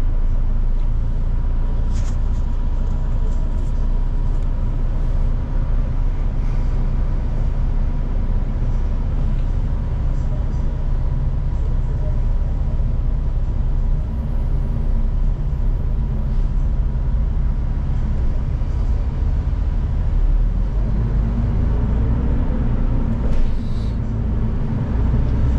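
Inside a moving city bus: a steady low rumble of engine and road noise, with a pitched drone that rises in the last few seconds as the bus picks up speed.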